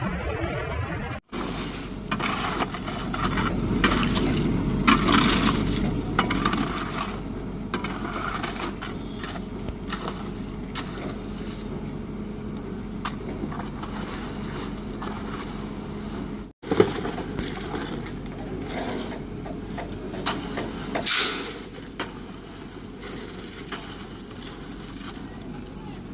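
Concrete construction work: machinery running steadily, with scraping and knocking. A short hiss comes near the end.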